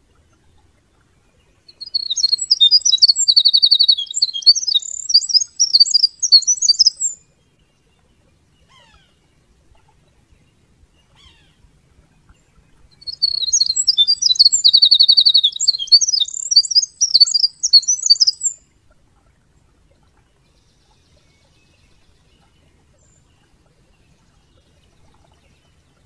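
A wren (genus Troglodytes) singing twice, each song a rapid, high, tumbling run of notes with a trill in it, lasting about five seconds, with several seconds of quiet between the two.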